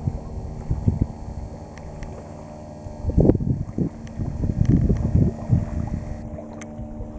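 Light propeller plane flying over, its engine a steady low hum, with wind buffeting the microphone in gusts from about three seconds in.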